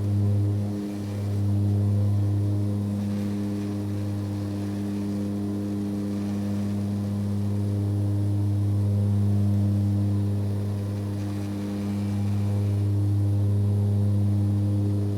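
Aircraft in constant flight: a steady, low droning engine hum holding one pitch, dipping briefly about a second in and swelling gently in level.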